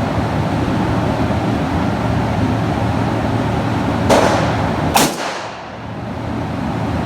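Two handgun shots about a second apart, sharp reports over a steady background hum.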